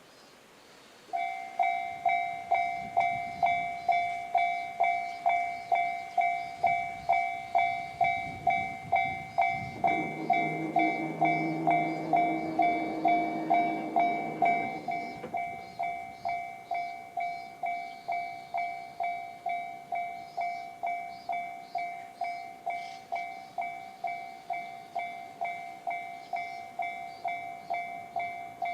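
Japanese railway level-crossing alarm in the JR standard electronic bell tone, starting about a second in and ringing steadily at about two strikes a second. An E257-series electric train passes from about ten to fifteen seconds in, its rumble and low motor hum under the bells.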